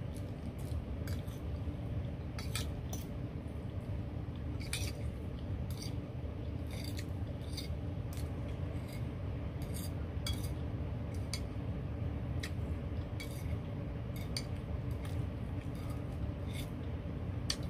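Metal fork clinking and scraping against a ceramic bowl of food: scattered short clicks over a steady low hum.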